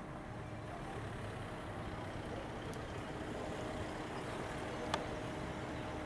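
Steady outdoor rumble with a faint, even motor hum, and one sharp click about five seconds in.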